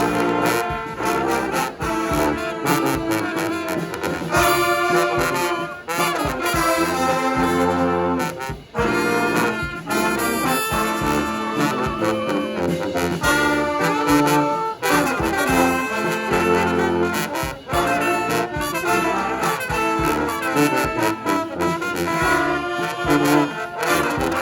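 A brass band playing a song live: several horns sounding held and moving notes together over a pulsing low bass line.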